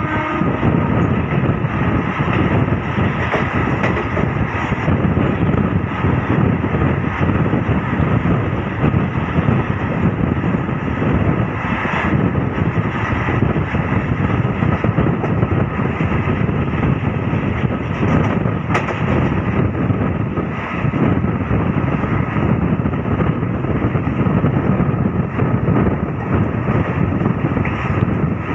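Passenger train running at speed, heard from an open coach window: a steady loud rumble of wheels on the rails mixed with rushing wind, with a couple of faint clicks partway through.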